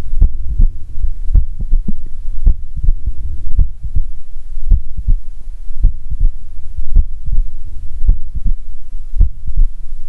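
A human heartbeat recorded through a Stethophone smartphone stethoscope: regular low thuds, roughly one beat a second, over a steady low hum, with a murmur filling the space between some of the beats. It is a systolic murmur, the marker of an underlying cardiac pathology.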